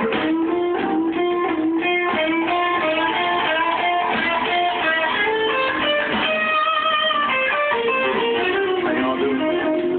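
Slow blues on electric guitar: a lead guitar plays a run of single-note lines with bent notes.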